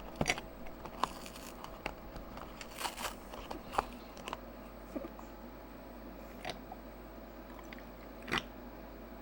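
Scattered, irregular small clicks and knocks, about a dozen over several seconds, with one slightly longer knock near the end.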